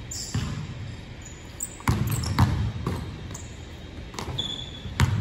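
Basketball bouncing on a hardwood gym floor during a one-on-one dribble, a handful of irregular thuds that echo in the gym, with short high squeaks of sneakers on the floor between them.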